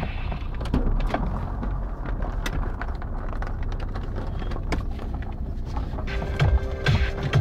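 Car moving at low speed, heard from inside the cabin as a low rumble with scattered clicks. Electronic music with a steady beat comes back in about six seconds in.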